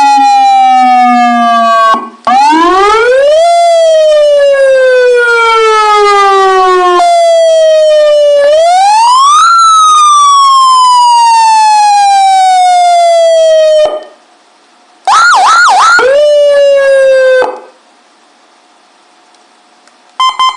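Electronic siren amplifier's 100 W slim speaker sounding a loud wail, with the pitch wound up quickly and then left to glide down slowly, like a manually operated siren. It cuts off and restarts several times. Near three quarters of the way in come a few rapid yelping dips followed by a falling tone, and a brief blip sounds near the end.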